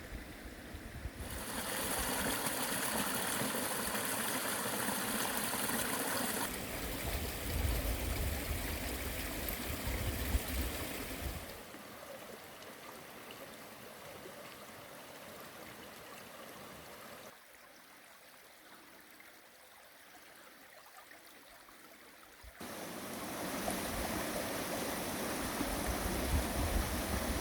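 Running water of a stream, jumping abruptly in loudness several times, with a low rumble in the louder stretches and a much quieter stretch about two-thirds of the way through.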